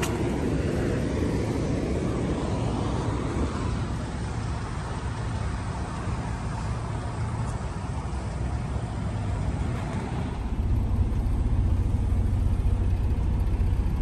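Semi-truck diesel engine running with outdoor road and wind noise; about ten seconds in, it cuts to a louder, deeper, steady engine rumble heard from inside the truck cab.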